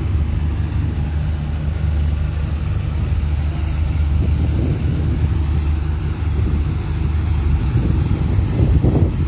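Steady low rumble of a running engine, with faint voices in the background.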